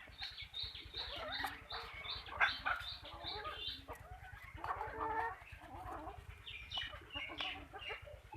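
Free-range chickens clucking, with a quick run of short, high calls over the first few seconds.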